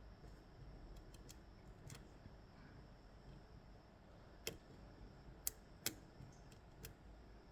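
Scattered faint metallic clicks of a lock pick and tension tool working the pins of an Ezcurra DS-10 lock, a few single ticks, the loudest about four and a half seconds in and two more close together near six seconds.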